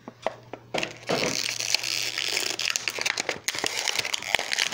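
Clear plastic toy packaging being handled and crumpled, crackling and crinkling with many sharp clicks, starting about a second in.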